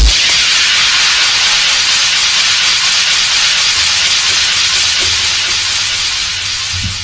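Synthesized white-noise wash in an electro track, a steady loud hiss with no beat under it, tapering slightly near the end as the track fades out.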